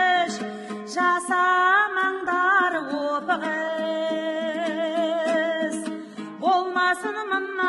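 A woman singing a Kazakh song over plucked-string accompaniment, the melody wavering with vibrato and holding one long high note through the middle.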